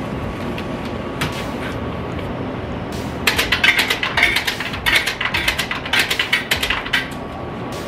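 Rapid clatter of clicks and metallic rattles from inside an open drink vending machine as coins are taken out of its coin mechanism, lasting a few seconds in the middle, over a steady background hum.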